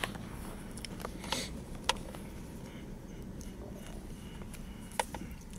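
Multimeter test probes being handled against a temperature sensor's leads, giving a few sharp little clicks over a low steady hum.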